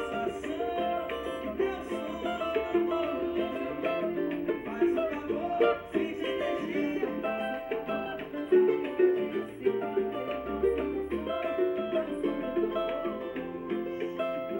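Cavaquinho strumming a pagode rhythm accompaniment, with the song's band playing under it in a stretch without vocals.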